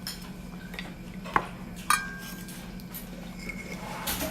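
Kitchen utensils clinking against dishes: two sharp clinks about half a second apart, the second ringing briefly, over a steady low hum.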